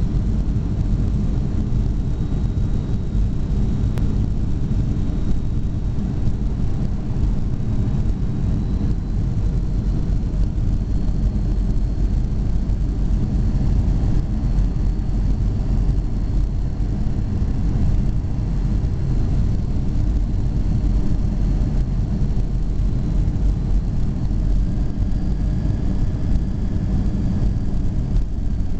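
Boeing 757 cabin noise during final approach and landing: a steady, deep rumble of the engines and rushing air heard inside the cabin over the wing, carrying on without a break through touchdown and the roll-out on the runway.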